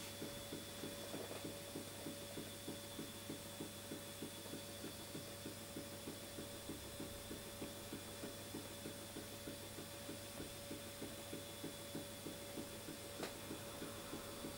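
Model Stirling hot-air engine, a replica of Robert Stirling's 1816 original, running steadily with a soft, regular knock about three times a second as its piston and crank linkage turn over.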